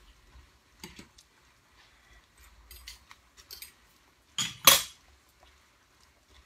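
Metal spoon and pans clinking on a stovetop: a few light clinks, then two louder clanks close together about four and a half seconds in.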